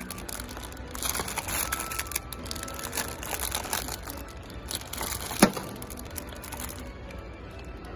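Cellophane bags of plastic Plarail track parts crinkling and rustling as a hand flips through them on a hanging rack, with one sharp clack a little past the middle.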